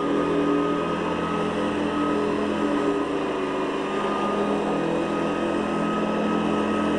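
Hoover Guardsman commercial upright vacuum cleaner running steadily while vacuuming carpet, a constant motor hum with a high whine.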